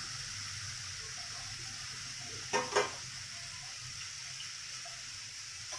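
Steady faint sizzle from marinated boal fish pieces and spice paste frying in a kadai on a gas stove. There are two quick knocks on the pan about halfway through.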